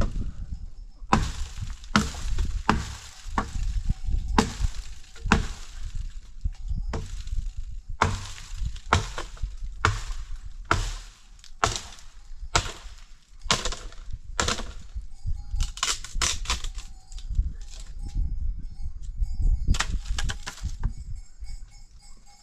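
Wood being chopped: a run of sharp chops and cracks at uneven intervals, roughly one or two a second, with a short pause about eighteen seconds in.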